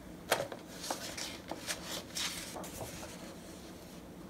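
A page of a large hardcover picture book being turned by hand: a quick run of paper rustles and soft flicks lasting about two seconds, starting a moment in.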